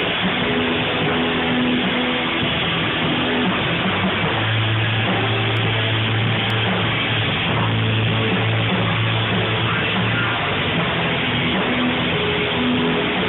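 Rock band playing live, guitars to the fore, with a low note held for about six seconds through the middle.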